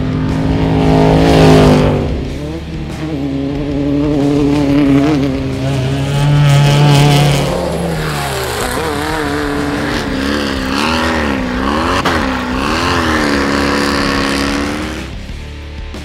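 Off-road desert race vehicles' engines at racing speed, several in turn: revving up hard, holding high, then rising and falling rapidly as the throttle is worked. About eight seconds in, one pitch falls away as a vehicle passes.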